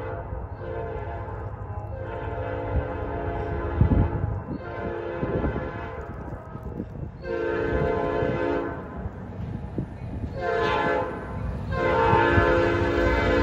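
Approaching freight locomotive's air horn, not yet in sight, sounding a series of blasts: several long ones, then a short one and a long one near the end, the pattern of a grade-crossing signal. A low rumble runs underneath.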